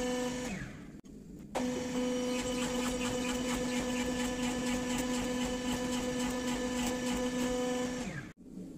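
Power hammer running with a steady machine hum and rapid, regular blows on a red-hot bearing-steel bar between rounded drawing dies. It winds down and stops about half a second in, starts again abruptly about a second later, and winds down again near the end.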